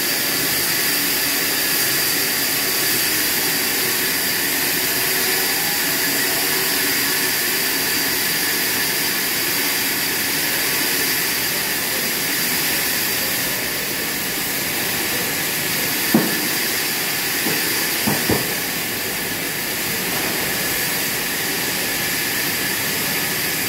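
Indian-built band sawmill running steadily as it saws through a padouk log, a continuous hiss with a high steady whine. A few short sharp knocks come about two-thirds of the way through.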